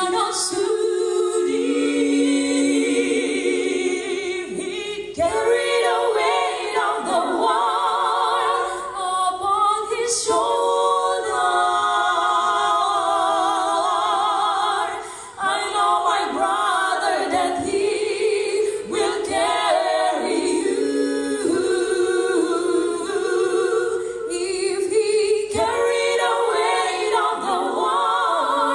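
Mixed choir of men and women singing a cappella, the voices held with vibrato, with a short break between phrases about halfway through.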